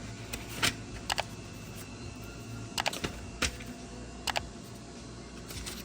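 Sharp plastic clicks of buttons being pressed on a Maytag washer's control panel, several in quick pairs, as the stored fault codes are stepped through in diagnostic mode.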